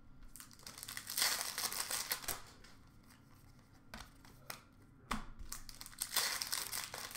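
Foil trading-card pack wrappers crinkling as hockey card packs are handled and opened, in two spells, about a second in and again past five seconds, with a few light clicks between them.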